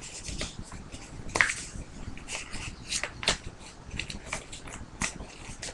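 A sheet of construction paper being folded in half and creased by hand, giving scattered soft crinkles and clicks.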